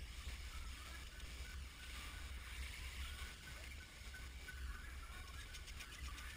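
Faint handling sounds of hands fitting parts and cables on a jet ski engine, with a few small clicks near the end, over a steady low rumble.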